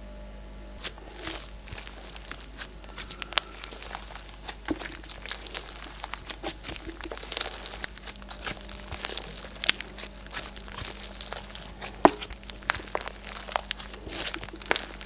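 Glossy slime being squeezed and pressed by hand, giving dense, irregular wet clicks and crackles that begin about a second in.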